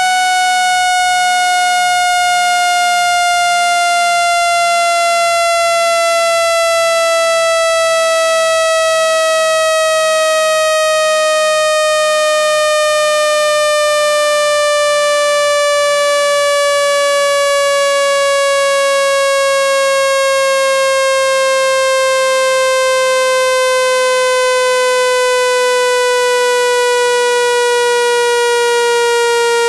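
Synthetic speaker-cleaning tone, of the kind played to push water and dust out of a phone speaker. It is a loud, buzzy, steady note that glides slowly and evenly down in pitch.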